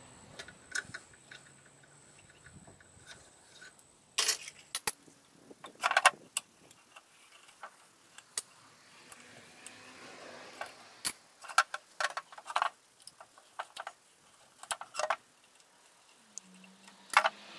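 Irregular clicks and clinks of small hard objects being handled, with louder knocks about four seconds in, about six seconds in and near the end.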